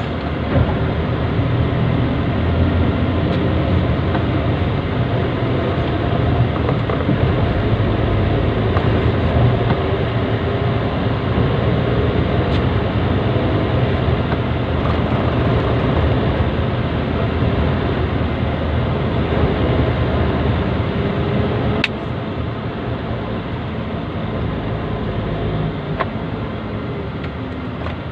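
Steady low drone of a vehicle's engine and tyre noise heard from inside the cab while driving at speed, with one sharp click about three quarters of the way through.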